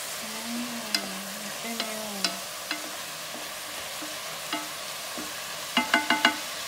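Diced onions frying in a nonstick pot, sizzling steadily while a wooden spoon stirs them with occasional knocks against the pot. About six seconds in comes a quick run of four or five ringing taps.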